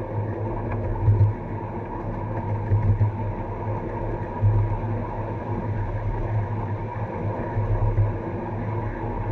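Ride-on live steam train rolling through a corrugated metal tunnel: a steady low rumble of the cars running on the track, swelling louder about every second and a half.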